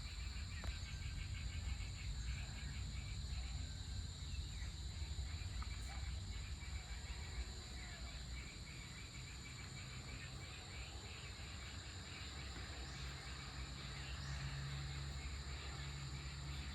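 Evening outdoor ambience: insects trilling steadily at a high pitch, with runs of quick chirps, over a continuous low rumble. A low drone grows louder near the end.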